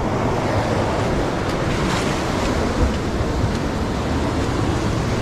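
Steady rush of waves washing on the shore, with wind buffeting the microphone.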